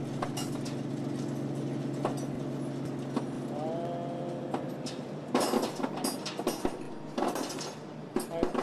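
CNC milling machine face-milling a large metal ring: a steady machine hum with a short rising whine near the middle, then harsher, louder cutting noise in bursts for the last few seconds.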